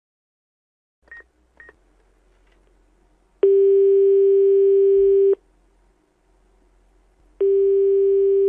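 Telephone call being placed: two short beeps as the number is dialled, then the ringing tone heard by the caller. It is a steady low tone lasting about two seconds, then a pause of about two seconds, and a second ring starting near the end, as the line rings before it is answered.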